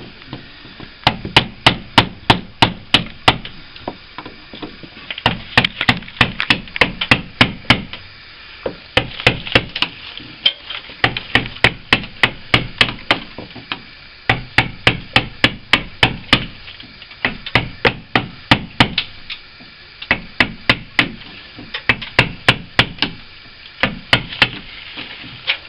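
Hammer striking in quick runs of sharp taps, about four or five a second, with short pauses between runs: hacking out hard old window putty from the frame.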